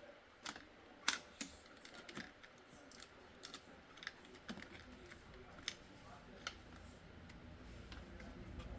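Scattered light clicks and taps of small tools and laptop parts being handled during disassembly, irregular and unevenly spaced, the sharpest about a second in. A low rumble builds toward the end.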